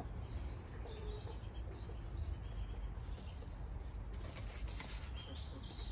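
Faint bird calls, short high chirps in the first couple of seconds and again about five seconds in, over a low steady rumble.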